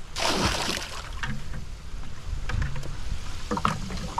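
Water pouring out of a plastic bucket into shallow pond water: a rushing splash in the first second, then smaller splashes and trickles as the bucket keeps tipping.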